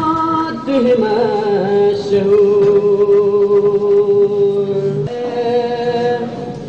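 Male voice singing long held notes in qawwali style, the pitch shifting and settling onto a long sustained tone, then moving to a higher note near the end.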